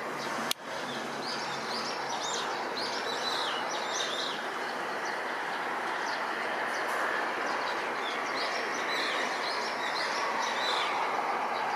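Distant steady roar of a Boeing KC-767's twin turbofan engines as it climbs away after a touch-and-go, growing slightly louder, with small birds chirping over it. A sharp click about half a second in.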